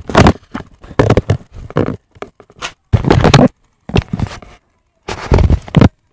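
Handling noise from a camera's built-in microphone as the camera is picked up and moved: about six loud bumps and scrapes, each half a second to a second long.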